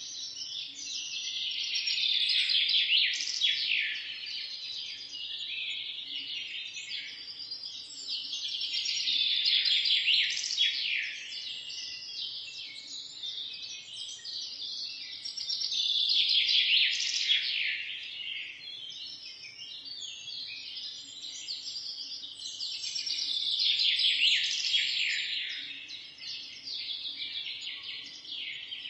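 Dense chorus of small birds chirping: rapid high falling notes that swell into loud bursts four times, about seven seconds apart, with quieter chirping between.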